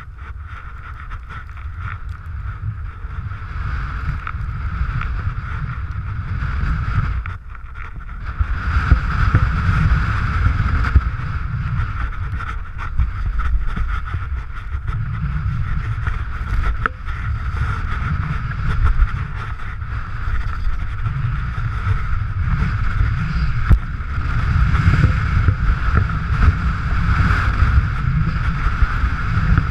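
Wind buffeting the camera microphone during a downhill ski run, with skis hissing and scraping over packed snow. The rush grows louder from about eight seconds in, after a brief dip.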